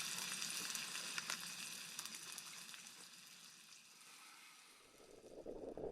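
Soft sizzling hiss with scattered small crackles from the hot tent's wood stove, fading away over about four seconds. Near the end a low rumble comes in.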